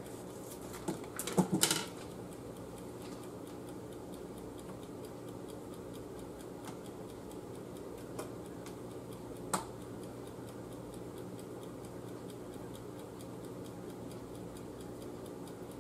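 Bacon frying gently in a saucepan, giving light, steady ticking pops over a low hum. Kitchen scissors snip through the bacon several times about a second and a half in, and once or twice more near the middle.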